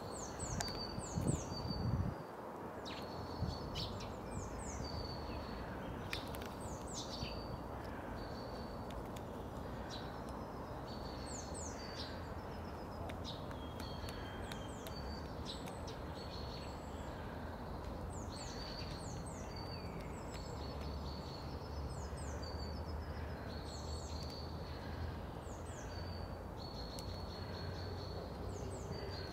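A small songbird singing: short, high phrases of quick downward-sweeping notes, often ending on a held whistle, repeated every second or two over steady background noise. A few sharp knocks sound in the first two seconds.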